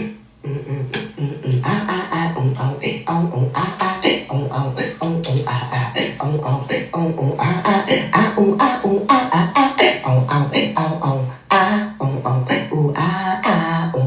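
A beatboxing beat: a steady rhythm of clicks and hissing hi-hat sounds over a stepping bass line. It drops out briefly near the end and then picks up again.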